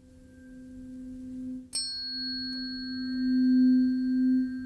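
A 256 Hz tuning fork sounds a steady low pure tone over a resonance tube whose lower end is closed by a water column. About a third of the way in it is struck again with a short metallic ping. The tone then swells louder as the air column is brought to its resonant length.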